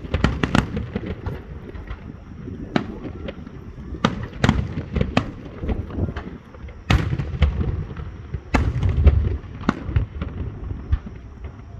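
Fireworks display shells bursting: a run of sharp bangs and crackles over deep booms, a dense flurry in the first second or so, then single reports, with the heaviest booms about seven seconds in and again around nine seconds.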